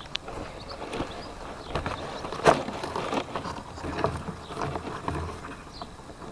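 Wind buffeting the microphone of a camera mounted on a Parkzone Radian RC glider, an uneven rushing noise that swells and fades, with a sharp knock about two and a half seconds in.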